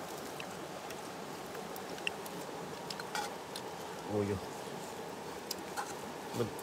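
Steady buzzing hiss of insects, with a few light clicks and a brief low voice about four seconds in.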